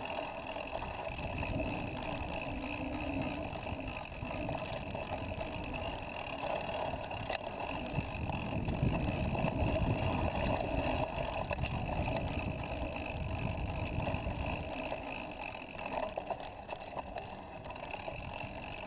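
Mountain bike rolling along a dirt singletrack, heard from a camera mounted on the bike: a steady rumble of the knobby tyres on dirt with wind noise and a few light rattles and clicks. The rumble eases a little about fifteen seconds in.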